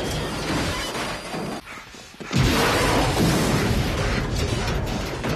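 Film sound effects: crashing noise as a helicopter comes down in a dust cloud, then a loud explosion that starts suddenly about two and a half seconds in and rumbles on.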